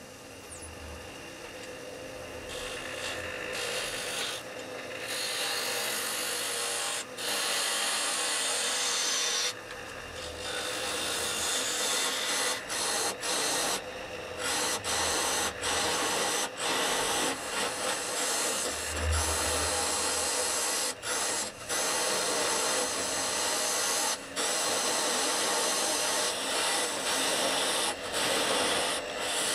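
Turning gouge cutting into spinning wood on a lathe: a continuous scraping, shaving hiss that grows louder over the first few seconds, then breaks off for moments again and again through the rest of the cut.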